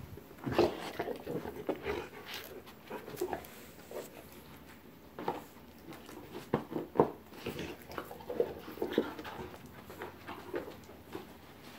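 Rottweiler panting while it mouths and gnaws at a football to work a treat out, with irregular short chewing and knocking sounds.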